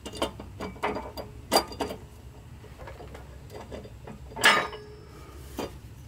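Metal bearing support being worked by hand over the input shaft bearing onto a tractor transmission case: scattered metal clicks and clanks, the loudest about one and a half seconds in and again about four and a half seconds in.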